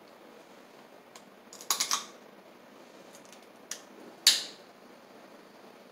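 Snow crab leg shell cracking: a quick run of small crackles about two seconds in, a single click, then one loud, sharp crack a little after four seconds.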